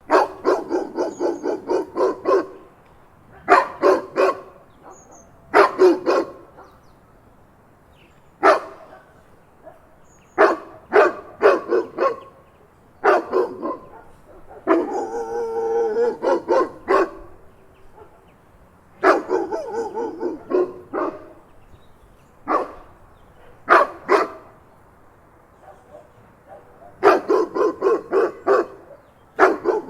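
A big dog barking in bursts: quick runs of several barks and short groups of two or three, separated by pauses of a second or two. About halfway through comes a longer, drawn-out vocalisation of a couple of seconds.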